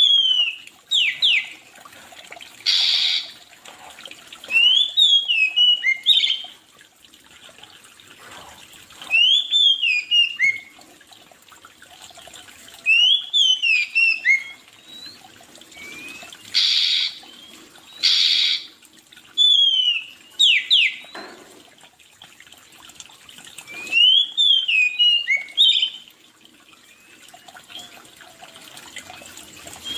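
A songbird singing a short phrase of quick rising-and-falling chirps, repeated about every four seconds. A few short hissy bursts are mixed in between the phrases.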